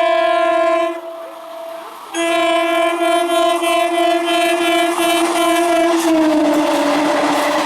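Indian Railways train horn in two long blasts, the first ending about a second in, the second starting about two seconds in. The second blast is held as the train passes and drops in pitch about six seconds in, over the rumble of the train going by.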